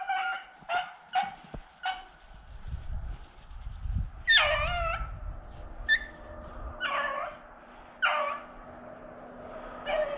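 Beagles giving voice while running a rabbit: several short barks, then one long, wavering bay about four seconds in, and more barks every second or so after it.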